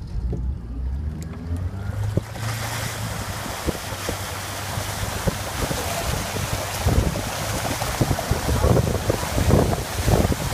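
A motorboat engine speeds up, its pitch rising over the first two seconds. From about two seconds in, a steady rush of water from the wake and the planing board's spray takes over, with wind gusting on the microphone.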